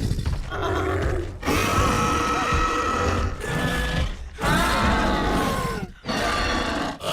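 Fan-made Scorpius Rex creature sound effects: a run of growling roars and snarls, about five separate calls one to three seconds long, each cut off by a brief gap.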